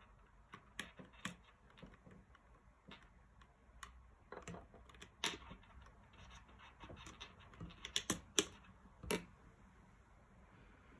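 Irregular light clicks and taps of small hard plastic parts being handled, as on a phone security display stand and its holder. A few sharper clicks stand out in the second half.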